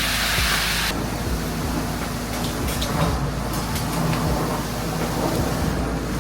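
Heavy truck's engine running steadily, with a loud hissing rush that cuts off about a second in and scattered clicks and knocks after it.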